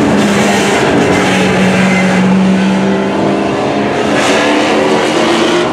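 Dirt-track racing pickup trucks' engines running at speed around the oval: a loud, steady engine drone from the field of trucks.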